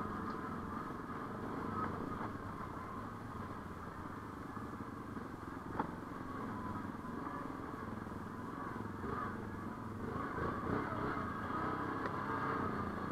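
ATV engine running steadily, with one sharp knock about six seconds in.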